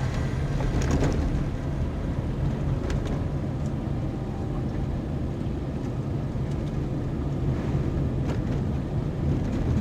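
Car driving over an uneven, potholed road: a steady low rumble of tyres and engine, with a few faint knocks.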